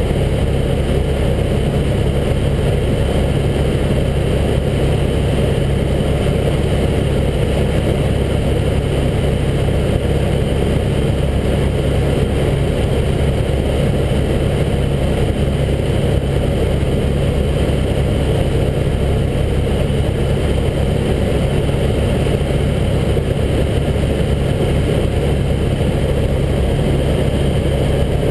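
Helicopter in flight, heard from inside the cabin: the engine and main rotor make a steady, unbroken drone with a deep hum.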